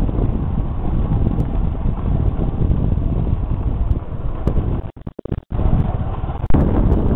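Wind buffeting the microphone of a phone carried on a moving motorcycle, a loud, steady low rumble. It cuts out in a few short gaps about five seconds in, then comes back louder.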